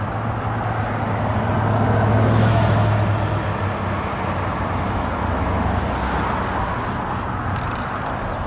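A motor vehicle's engine running with a steady low hum, swelling about two seconds in and then easing back.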